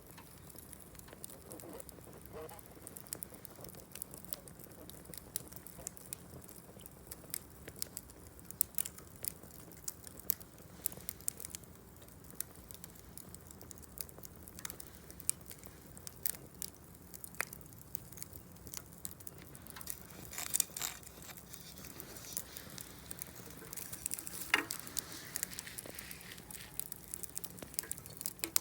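Wood fire crackling, with a steady run of sharp little pops and a few louder snaps.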